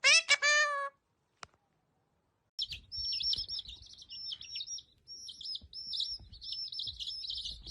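A short pitched call sliding slightly down, then after a silent gap a small bird chirping rapidly and continuously at high pitch.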